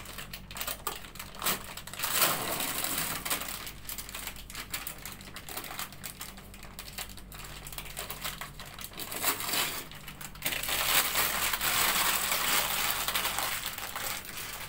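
Paper wrapper of a sterile dressing set crinkling as it is unfolded by hand from around a stainless steel tray. The crinkling comes with many small crackles, in two louder bouts: one about two seconds in and a longer one starting a little past halfway.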